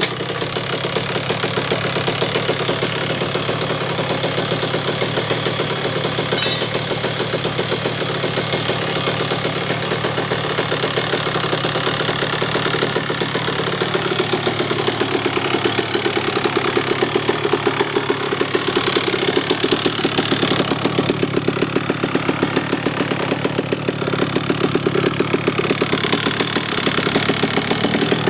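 2006 KTM 85 SX's two-stroke single-cylinder engine firing up and running on a cold start, kept at low revs because it is still cold. Its note shifts about halfway through and takes on a more regular pulse.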